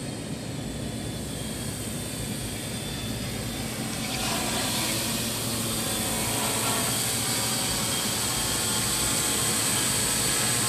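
Multirotor drone flying: the steady buzz and whine of its electric motors and propellers, growing louder and higher about four seconds in as it comes close overhead.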